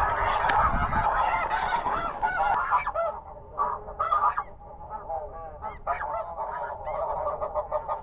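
Snow geese calling in a dense chorus of many overlapping high, yelping honks. The calls thin out for a few seconds midway, then build again. There is a low wind rumble on the microphone at the start.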